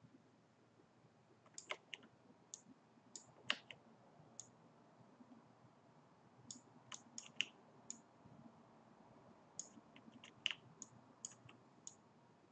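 Computer mouse clicking at irregular intervals, some clicks in quick pairs and small clusters, over faint room hiss.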